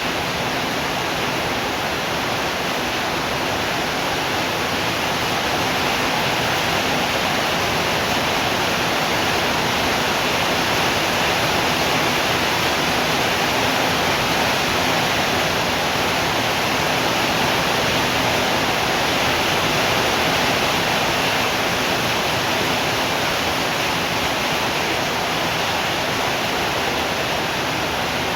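Steady heavy rain, an even rushing hiss with no let-up and no thunder.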